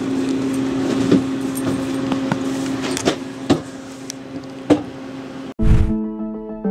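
A steady low hum with scattered light clicks and taps over it. About five and a half seconds in, it cuts off abruptly into a whoosh and electronic outro music.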